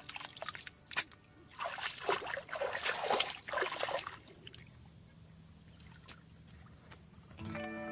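Water splashing and sloshing in several quick bursts, with a few sharp clicks just before. Music comes back in near the end.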